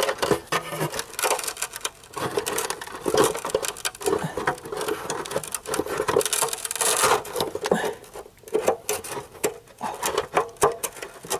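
Irregular clicks, taps and rubbing of hard plastic parts being handled: a car turn-signal light housing and its bulb socket being worked on by hand.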